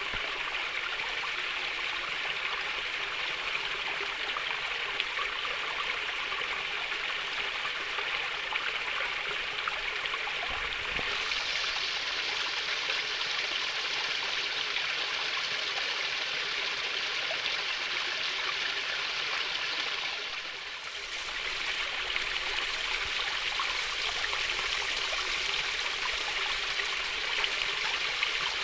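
Water flowing gently in a shallow stream, a steady trickling babble. It dips briefly in level about twenty seconds in.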